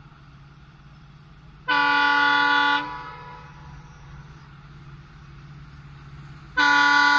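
A horn blown twice, each a steady, unwavering blast of about a second, the two about five seconds apart, over a steady low hum.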